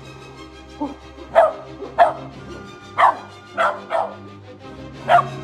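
Corgi barking: a string of about seven short, sharp single barks over background music.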